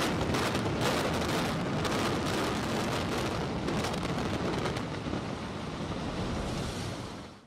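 A brick high-rise collapsing in a demolition implosion: sharp cracks in the first few seconds, then a long, steady rumble of falling masonry. It cuts off suddenly at the end.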